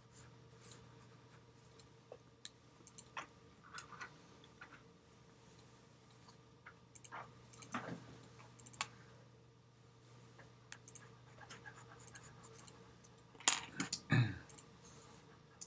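Graphite pencil scratching on paper in short strokes, with scattered light clicks and taps and two louder knocks close together near the end; a faint steady hum underneath.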